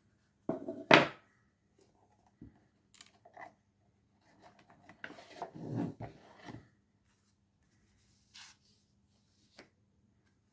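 Handling of a cardboard postcard box on a wooden desk: a sharp knock about a second in as a piece of the box is set down, a few light taps, then a longer papery scraping as a stack of postcards is slid out of the box.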